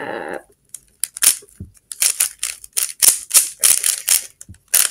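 YJ Yulong plastic speed cube being turned, its layers snapping round in sharp, irregular clicks, a few a second, starting about a second in.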